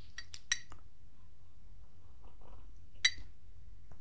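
Quiet room tone with a faint low hum, broken by a few short, sharp clicks: several in the first second and one more about three seconds in.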